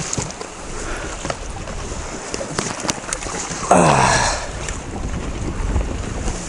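Wind buffeting the microphone over water around a small boat, with a few light knocks, and a short pitched sound about four seconds in.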